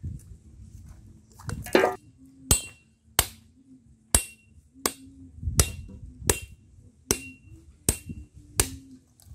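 Machete blade striking a whole husked coconut held in the hand to crack it open. A longer rasping stroke comes about a second and a half in, then about nine sharp knocks, one roughly every 0.7 seconds.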